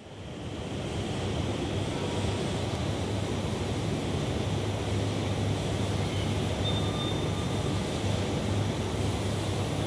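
Steady rushing background noise of an underground metro station with a low hum beneath it, rising in over the first second.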